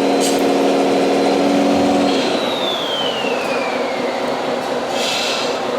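Radio-controlled truck pulling: a steady engine-like drone cuts off about two seconds in, then a whine falls in pitch over about two seconds, like an electric drive motor spinning down. Short hisses come at the start and near the end.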